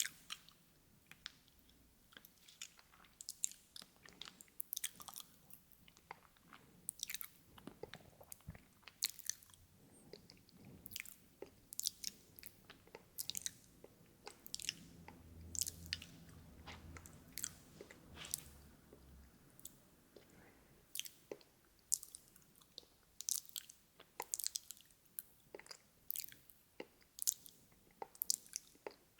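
Close-miked ASMR mouth sounds: irregular clicks and smacks of the lips and tongue, a few a second, like nibbling and chewing.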